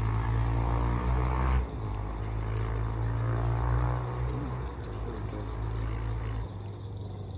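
An engine running steadily with a low hum, dropping away about six and a half seconds in.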